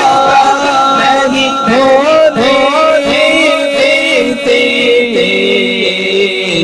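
Male voice singing a naat with no instruments, over a microphone, drawing out long, sliding notes without words.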